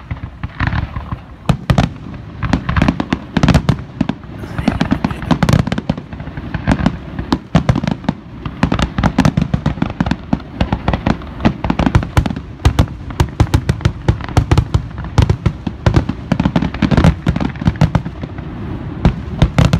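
Aerial fireworks going off in a rapid, continuous barrage: many loud booms from bursting shells, with sharp bangs following close on one another.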